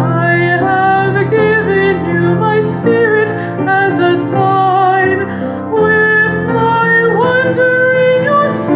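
A hymn sung by a woman's voice over gentle instrumental accompaniment, a slow, tender tune.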